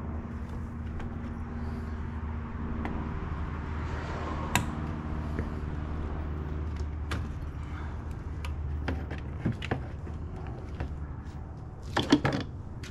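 Scattered sharp clicks and clacks of hand tools and plastic fittings in an engine bay, as the coolant expansion tank's electrical connector and hose clamp are worked loose, over a steady low hum. A quick cluster of louder clacks comes near the end.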